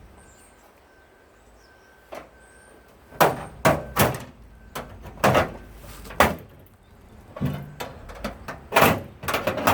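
Irregular loud knocks, bangs and scrapes from about two seconds in, as a washing machine's parts are pried and forced apart with a pry bar.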